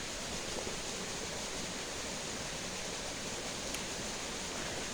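Steady rush of the swollen Todd Brook running high after a storm.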